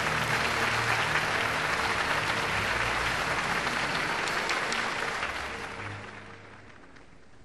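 Crowd applauding, a dense even patter of many hands clapping, fading out over the last two seconds or so.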